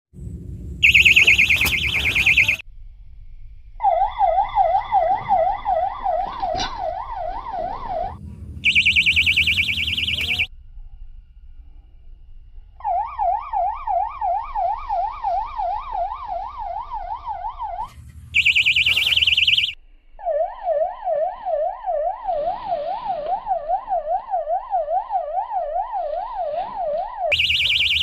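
Electronic fishing bite alarms going off in turns: a siren-like warbling tone sweeping up and down about three times a second in three long stretches of four to seven seconds, alternating with four shorter, higher, faster-warbling bursts of about two seconds each. The alarms signal a fish taking the bait on the rods.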